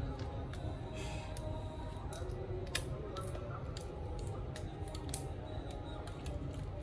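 Scattered light clicks and taps of plastic laptop parts, connectors and screws being handled and fitted during reassembly, the sharpest about two and three-quarter seconds and five seconds in, over faint background music and a steady low hum.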